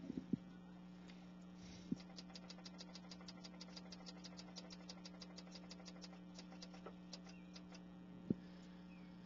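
Faint steady electrical hum, with a run of rapid faint ticks at about five a second through the middle and a few soft thumps.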